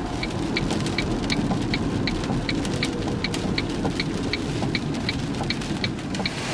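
A car's indicator flasher ticking evenly, a little under three ticks a second, over a steady rushing noise.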